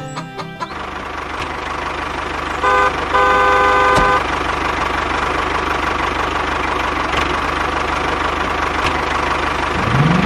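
A small tractor engine running steadily with a fast low chugging. About two and a half seconds in, a horn toots twice, a short toot then a longer one.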